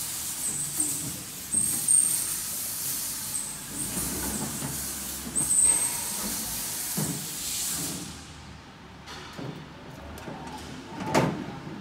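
The slatted metal work table of a CO2 laser cutter sliding on its rails into the machine: a rasping hiss with brief high squeals, which stops about eight seconds in. A single knock follows near the end.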